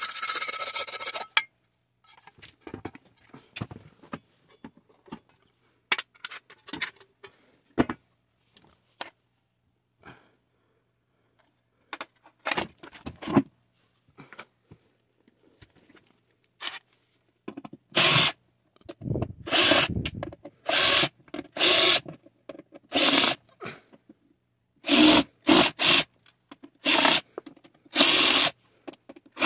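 Cordless drill-driver run in a series of short bursts, backing screws out of a stove's sheet-metal base plate. Before that, sheet-metal panels are handled and rubbed together, with a loud scrape at the start and light clicks.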